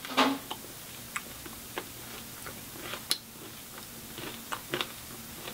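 Scattered soft clicks and wet mouth sounds from a filled hard candy being sucked and moved around the mouth, about ten irregular ticks.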